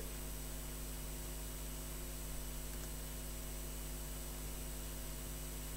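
Steady electrical mains hum with a background hiss, unchanging throughout.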